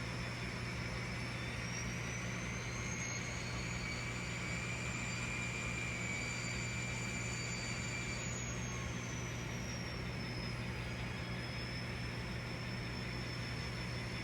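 N scale model locomotives running along the track: a high electric motor whine that rises slowly in pitch and then falls back as the train's speed changes, over a steady low hum.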